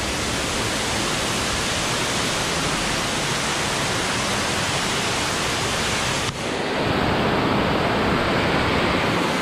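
Steady rush of a waterfall and the river water cascading over rocks below it. About six seconds in, the sound shifts abruptly to a duller, fuller rush with less hiss.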